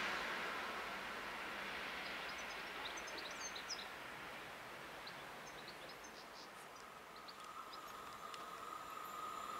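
Rumble of a passing train fading away, with birds chirping in the quiet between. Near the end a steady high whine grows louder, like the wheels of another train coming in.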